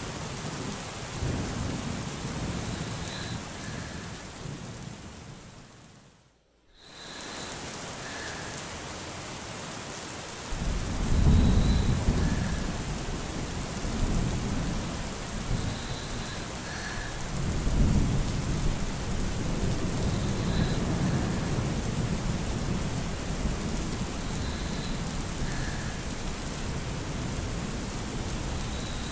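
Steady rain with rolling thunder. The sound fades almost to nothing about six seconds in, comes back, and from about ten seconds in deep rumbles of thunder swell and die away several times.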